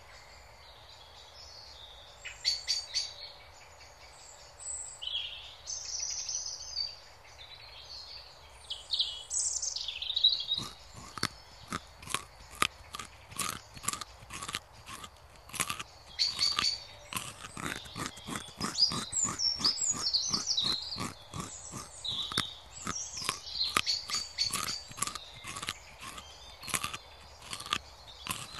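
Small birds chirping in the background. From about ten seconds in, a fast, even run of crisp crunching clicks, three or four a second, from a rabbit chewing grass close to the microphone.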